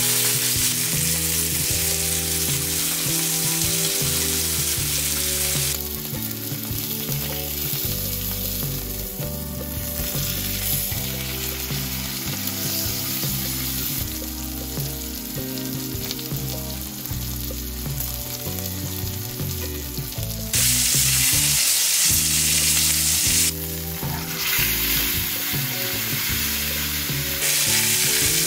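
T-bone steak searing in oil on a cast-iron griddle pan: a steady sizzling hiss that steps between louder and quieter several times.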